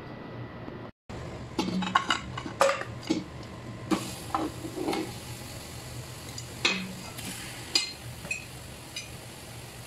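A plate and a stainless steel pot clattering as raw chicken pieces are moved from the plate into the empty pot: an irregular string of knocks and clinks, some ringing briefly.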